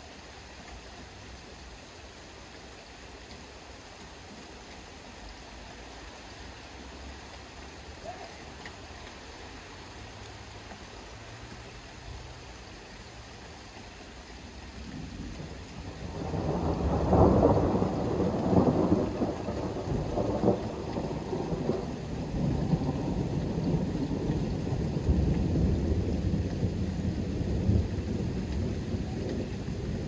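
Distant thunder rolls in about halfway through, swelling to its loudest a few seconds later and then rumbling on unevenly, over a steady faint background hiss.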